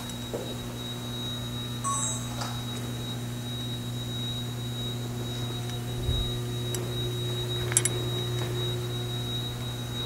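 An alarm sounder giving one steady, unbroken high-pitched electronic tone over a low, steady electrical hum. A couple of short knocks come through, one about two seconds in and a sharper one near the eighth second.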